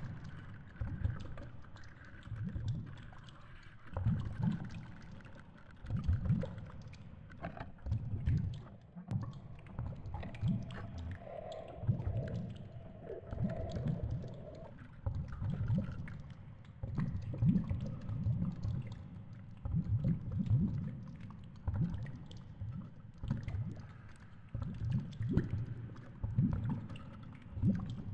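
Underwater noise picked up by a GoPro in its housing on a fishing line: low rumbling surges of water every second or two as the rig sways, with scattered faint clicks and a faint hum in the middle.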